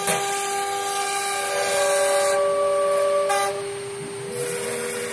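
CNC router spindle running with a steady high whine while the bit engraves into a wooden board, the cutting giving a loud hiss that eases off in the middle and returns near the end. Other whining tones from the axis drives step to new pitches as the head moves.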